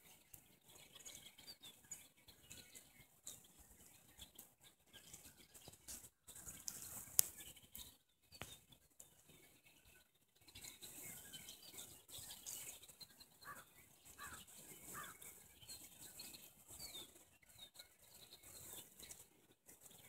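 Faint songbirds chirping and calling, with scattered short notes and a few clearer calls about two-thirds of the way through, over a steady hiss. One sharp click about seven seconds in.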